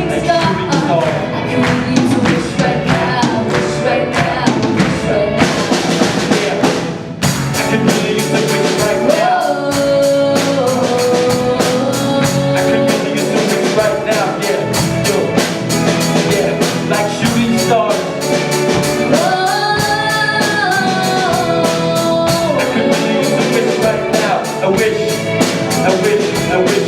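Live pop song performed by a singer with a band: a vocal line over a steady drum-kit beat. About seven seconds in the music drops briefly, then comes back with a fuller, busier beat.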